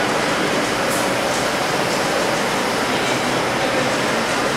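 Automated chocolate-moulding machine running: a steady mechanical noise, with a few faint ticks about a second in.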